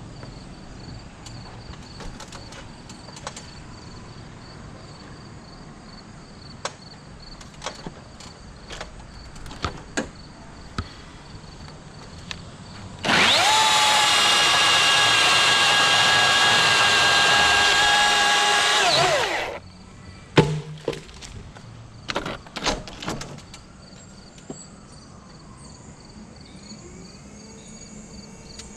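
A motor starts abruptly about halfway through and runs at a steady high whine for about six seconds, then winds down with falling pitch. Sharp clicks and snaps come before and after it, over a steady high insect buzz.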